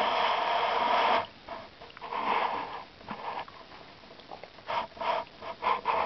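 Breathy puffs of noise close to the microphone: one lasting about a second at the start, a shorter one about two seconds in, then a quick run of short sniff-like puffs near the end.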